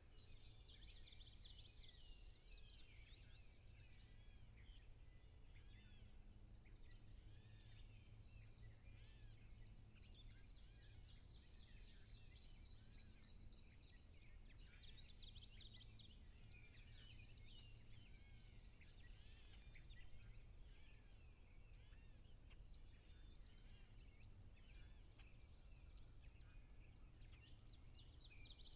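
Faint outdoor birdsong: several birds chirping, with rapid trills at times, over a steady low hum.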